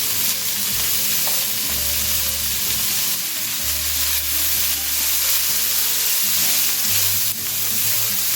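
Chopped green beans and carrots frying in hot sesame oil in a pan, with a steady sizzle as they are stirred.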